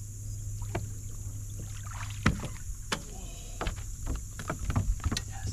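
Scattered knocks and clicks of an angler moving and handling a rod on the deck of a bass boat, the sharpest about two and three seconds in and a cluster near the end. A steady low hum and a steady high tone run underneath.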